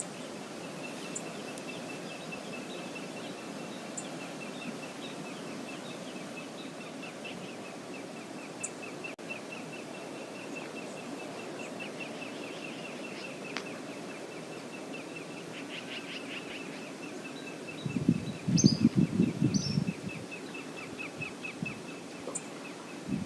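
Steady rush of river water, with a fast, even chirping trill running over it. About 18 seconds in, a loud, low rumbling burst lasts about two seconds, with a few short high bird calls.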